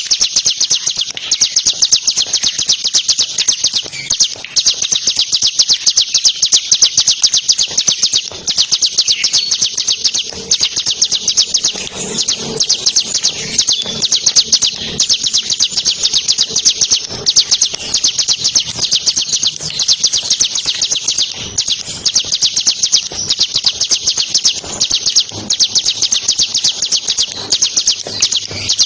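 Bar-winged prinia (ciblek) singing a continuous, very rapid, high-pitched trill of evenly repeated notes.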